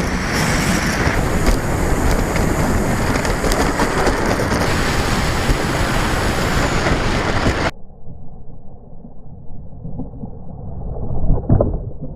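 Loud rushing wind and propeller noise from a flying FMS P-40 Warhawk electric RC plane, cutting off abruptly just before 8 seconds in to a quieter, muffled rumble. A brief rising whine comes near the end.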